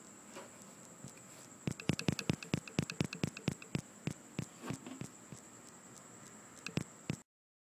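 A quick run of sharp clicks or taps, about four or five a second, starting a couple of seconds in, then a few scattered ones, over a faint steady high-pitched whine. The sound cuts off shortly before the end.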